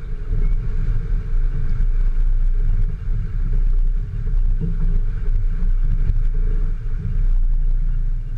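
Off-road vehicle's engine running, with a heavy low rumble that swells and dips throughout.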